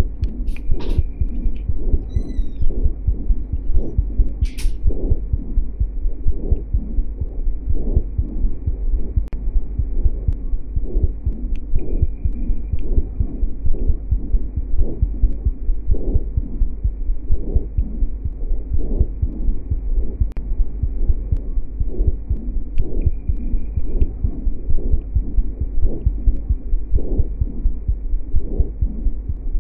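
Chest sounds recorded through a stethoscope: heartbeats thumping regularly, a little faster than once a second, over a steady low hum.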